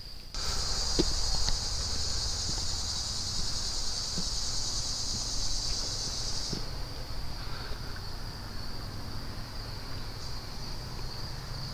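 Woodland insects calling: a steady high cricket-like trill, joined for about the first six seconds by a louder, higher insect buzz that cuts off suddenly. A low rumble and a few faint clicks lie underneath.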